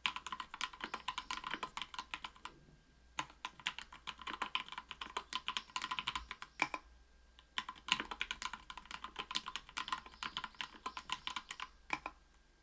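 Mechanical keyboard with lubed SP-Star Polaris Gray 67 g linear switches, aluminium plate and Cherry-profile PBT keycaps being typed on fast. There are three runs of rapid keystrokes with short pauses between them, and the typing stops just before the end.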